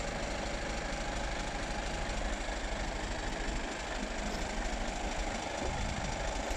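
Mercedes-Benz Actros 2548 tractor unit's 12.8-litre straight-six diesel idling steadily, with a low rumble and diesel clatter.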